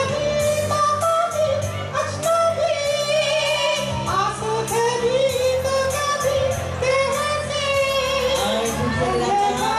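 A singer's voice through a microphone and PA over recorded backing music, carrying a melody with wavering, sliding sung notes.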